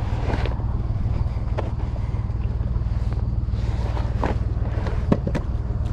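Footsteps and a Brompton folding bicycle being wheeled down a sandy concrete ramp: scattered clicks and scuffs, with a sharper click about five seconds in, over a steady low rumble.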